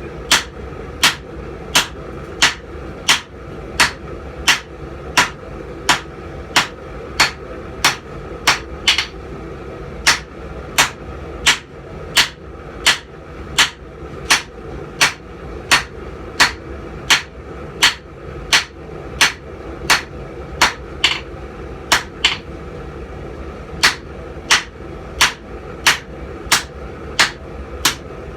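Hammer blows on hot steel over an anvil, striking in a steady rhythm of about three blows every two seconds, with a brief pause a few seconds before the end, over a constant background hum.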